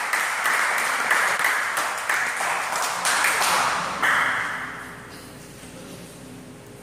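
Spectators applauding after a rally in a table tennis match, a dense patter of claps that dies away about five seconds in.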